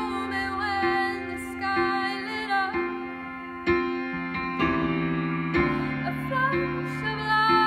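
Slow, gentle worship song: sustained chords and a melody played on an electric keyboard, with a woman's voice singing over them in stretches.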